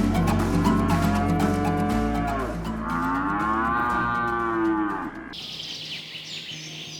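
Cattle mooing: two long, drawn-out moos, the second higher-pitched, ending a little before five seconds in.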